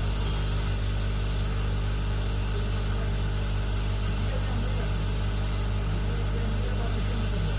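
Hot-air rework station blowing steadily, an even hiss over a low electrical hum, while an IC's solder is melted so the chip settles onto the phone board.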